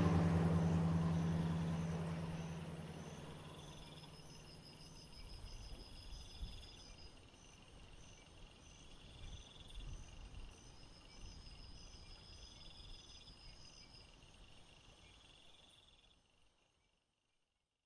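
Music dying away over the first few seconds, leaving faint crickets chirping in short, evenly repeated trills, which fade out to silence a couple of seconds before the end.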